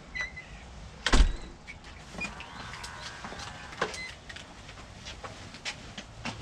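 A house's front door is shut with a heavy thump about a second in, followed by a short whirring rattle and scattered clicks of locking up and wheeled suitcases being moved.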